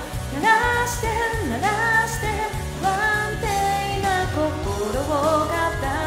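A woman singing a Japanese pop song over a karaoke backing track.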